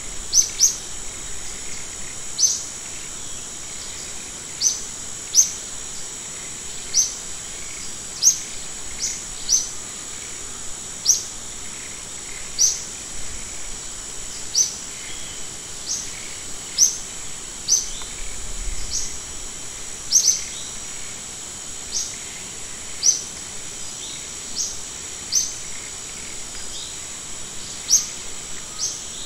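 A bird chirping: short, high single calls repeated about every second or two, over a steady high-pitched hiss.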